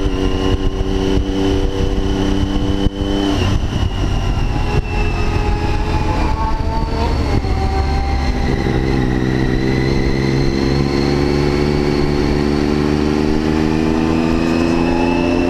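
Triumph Daytona 675's inline-three engine heard from on board, running at low revs at walking-to-slow riding pace. About four seconds in the engine note drops away for a few seconds, then picks up again and runs steadily with a slight rise in pitch.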